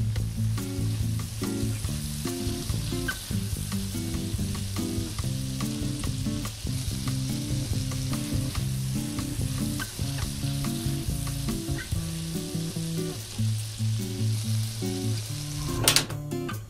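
Chicken pieces and boiled eggs sizzling in thick balado chili sauce in a frying pan as the sauce cooks down, with a wooden spatula stirring and scraping now and then. Soft background music plays underneath, and a brief loud burst of noise comes near the end.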